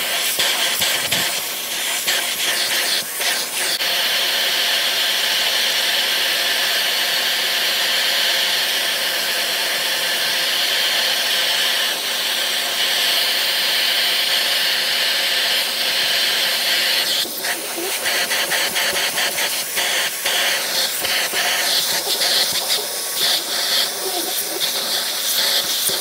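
Handheld vacuum cleaner running, a steady airy suction hiss, as its nozzle pulls dust out of the bristles of a vacuum floor-head brush. About two-thirds of the way in, short clicks and rustling break in and the hiss drops a little in pitch.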